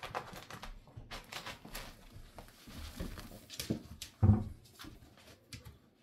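Two Cavalier King Charles Spaniel puppies scuffle over a rope toy on carpet: scattered rustles, scratches and clicks from paws and toy, with one heavier thump a little after four seconds.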